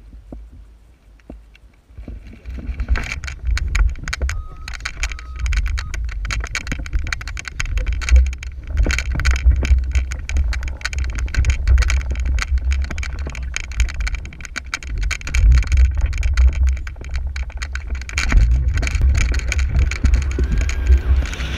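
Wind rushing over the microphone of a camera mounted on an Atos VQ rigid-wing hang glider during a running launch, with rustling and knocking as the pilot's feet pound down the grassy slope. It starts quieter and grows loud after about two seconds, and the rumble turns steadier near the end as the glider leaves the ground.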